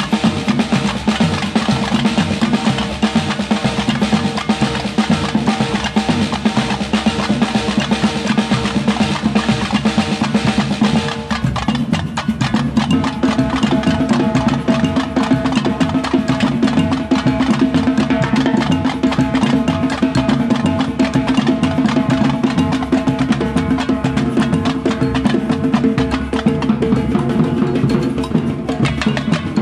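Batucada percussion band playing a continuous samba groove on tamborims, snare drums and larger bass drums. The pattern changes about eleven seconds in.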